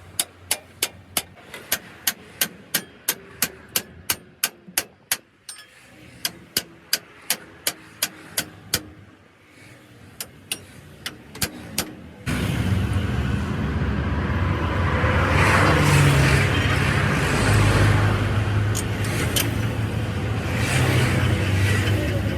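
A fast, even series of sharp knocks, about three a second, that thins out after about five seconds. About twelve seconds in it cuts abruptly to loud, steady vehicle engine and road noise with a low hum.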